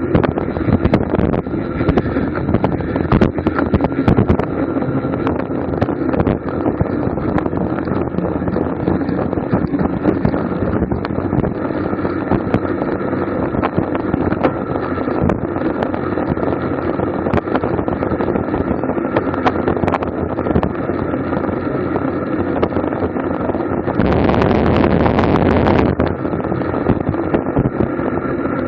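Wind rushing over a bicycle-mounted camera's microphone at racing speed, mixed with tyre and road noise. A louder rush lasts about two seconds near the end.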